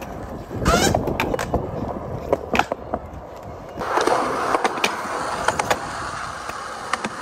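Skateboard on concrete: sharp pops and wheel knocks, a loud board scrape just under a second in, then wheels rolling and trucks grinding along a ledge with scattered clacks over the last three seconds.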